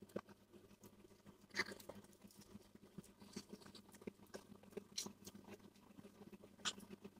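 Near silence with faint, scattered small clicks and taps, a few slightly louder ones about one and a half, five and nearly seven seconds in.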